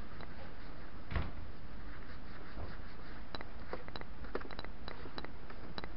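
A cloth wiping rainwater off a motorcycle seat: soft rubbing and scattered light clicks over a steady hiss, with one soft thump about a second in.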